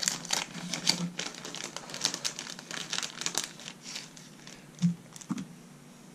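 Plastic bag of olive schlappen feathers crinkling and rustling in quick crackles for about three and a half seconds as the feathers are handled, followed by two soft knocks near the end.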